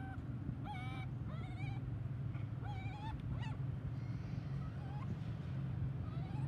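Short, wavering high-pitched calls from long-tailed (crab-eating) macaques, several in quick succession in the first half and a couple more later, over a steady low hum.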